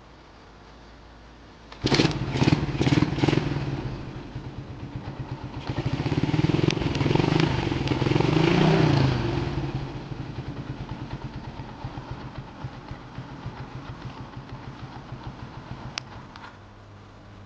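Yamaha New Jupiter MX single-cylinder four-stroke motorcycle engine starts about two seconds in with a few sharp pops. It is revved up and held for a few seconds, settles to an even putter at idle, and cuts out near the end.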